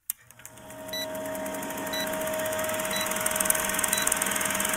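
Old film projector sound of a countdown leader: a fast, even clatter over a steady hum, with a short high beep once a second as the numbers count down. It fades in over the first second.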